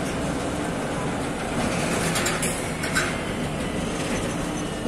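Shore gantry crane working over a container ship's deck, its spreader being lowered on wire ropes: a steady mechanical rumble, with a few metallic clicks and a clank about two to three seconds in.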